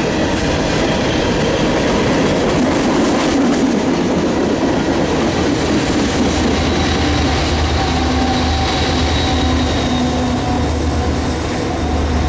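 Freight train rolling past with a steady clatter of wheels on the rails. From about halfway a faint, thin wheel squeal joins in.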